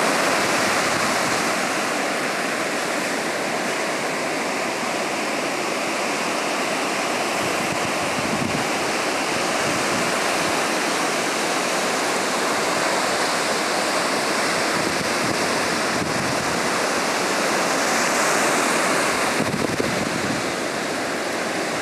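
Ocean surf breaking and washing up a sandy beach: a steady rush that swells a little near the end.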